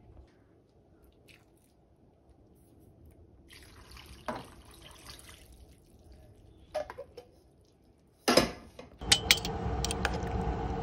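Liquid poured from a can into a pot of vegetables, splashing and trickling for a few seconds, with a few clinks. About two seconds before the end there is a sharp clatter. After it a much louder steady outdoor background noise takes over, with clinks of a metal spoon against the aluminium pot.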